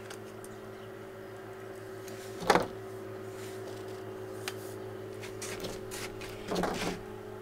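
Steady drone of distant silage-cutting machinery. About two and a half seconds in there is one sharp knock, and near the end a short rattle, as the boat-hook pole and its plastic dock hand are handled.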